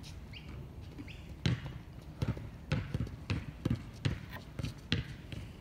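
A basketball being dribbled on a hard outdoor court: about ten sharp bounces at an uneven pace, starting about a second and a half in.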